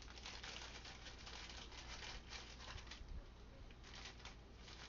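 Faint, crackly rustling of dried bay leaves being handled and dropped into jars.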